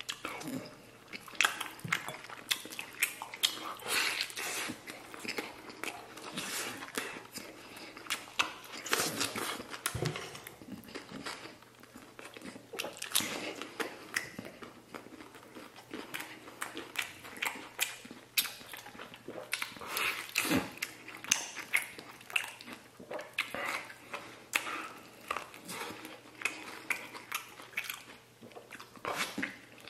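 A person biting and chewing stewed lamb rib meat off the bone, heard close up as a rapid, irregular run of small clicks and smacks.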